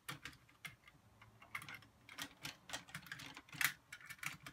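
Hard plastic parts of a Mighty Morphin Power Rangers Tigerzord Megazord toy clicking and tapping as they are handled and pressed together by their tabs: a string of irregular light clicks.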